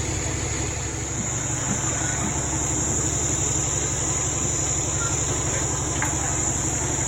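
Vehicle engine idling steadily, with a steady high-pitched whine above it.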